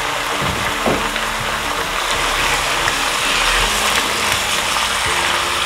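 Diced pork sizzling steadily as it fries in hot lard in a pot, with a single knock about a second in and a spatula stirring the meat later on.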